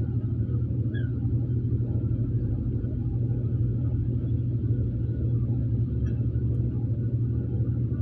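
Diesel engines of a crawler bulldozer and a hydraulic excavator running steadily, a low, even rumble.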